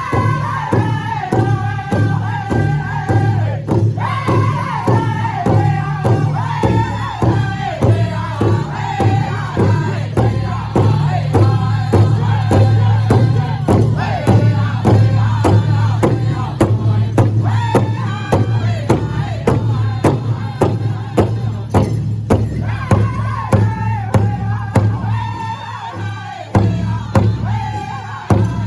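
Loud live music with a heavy bass and a steady beat about twice a second, with many voices singing together over it.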